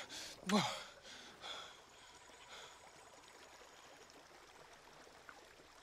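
A short breathy groan from a man, then only a faint steady hiss of background ambience.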